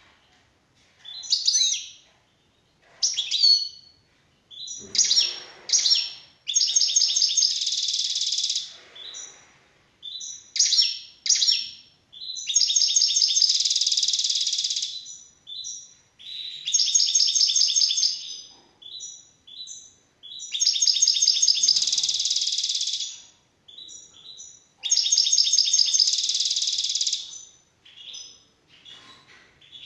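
European goldfinch singing: short separate chirps at first, then long rapid twittering phrases of about two seconds each, repeated every few seconds with short calls in between.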